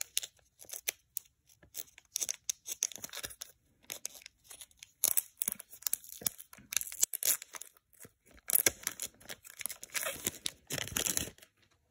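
Clear plastic wrapping and sleeves around trading cards being torn open and crinkled by hand: a quick, irregular run of short tearing, crinkling rasps that stops just before the end.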